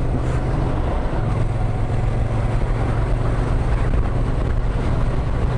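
Yamaha MT-07's parallel-twin engine running steadily at cruising speed, with a steady rush of wind and road noise from riding.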